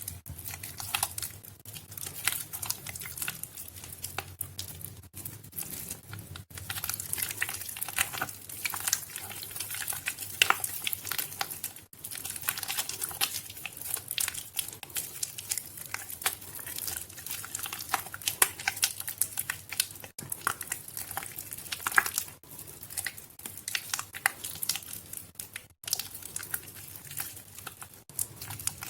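Soaked Nuvo bar soap squished by hand, giving a dense, irregular wet crackling with brief pauses.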